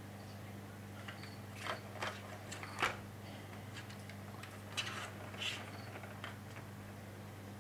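Plastic clicks and knocks from a Catit Senses ball-track toy as cats paw at the ball in its track: a few irregular taps and rattles spread over several seconds, over a steady low hum.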